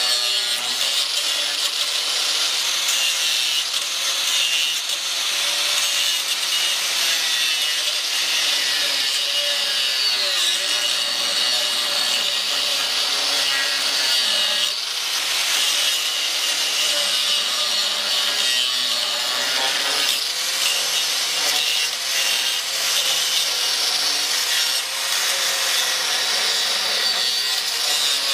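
Angle grinder running under load, its disc cutting into a rusted steel pickup-truck frame rail: a continuous harsh grinding hiss, with the motor's pitch wavering as the disc is pressed into the cut.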